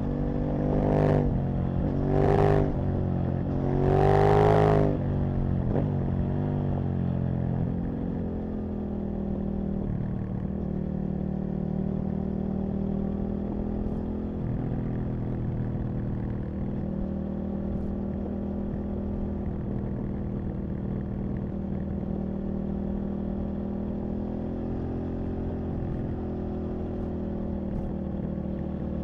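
Aprilia RSV Mille's 998 cc V-twin engine under way, revving hard in three quick surges over the first few seconds, then holding a steady lower note at a constant speed.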